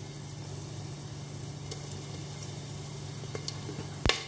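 Whole spices and cumin seeds sizzling steadily in hot sunflower oil in a pressure cooker, with a few faint ticks and one sharp click near the end.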